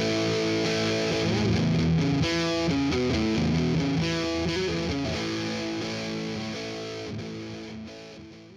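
Background music with distorted electric guitar, fading out toward the end.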